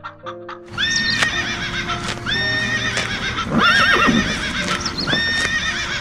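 Horse whinnying: one neigh with a wavering, shaking pitch about three and a half seconds in, among sharp clicks, with music throughout.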